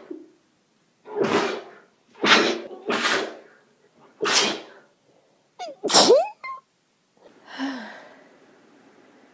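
A person sneezing again and again in quick succession, five sneezes about a second apart, the last one voiced, then a softer breathy sound near the end. It is allergic sneezing set off by spring tree pollen.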